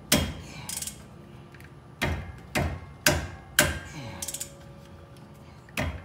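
Hand socket ratchet clicking as it is worked back and forth on a very tight brake caliper mounting bolt: about eight sharp clacks at uneven spacing, with short runs of rapid pawl clicks twice. The bolt is stiff at every turn, which the owner puts down to thread locker.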